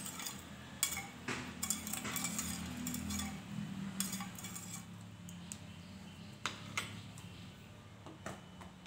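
Steel spoon stirring sugar into warm water in a stainless steel bowl, clinking repeatedly against the bowl's side and base. The clinks come often at first and thin to a few scattered ones over the last few seconds.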